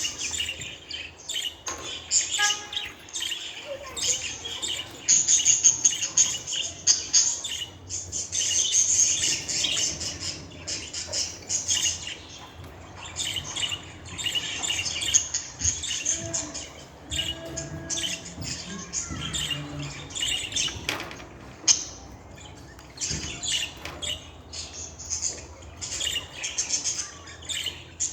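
Budgerigar chirping and chattering: a fast, nearly continuous run of high chirps and warbles broken by short pauses.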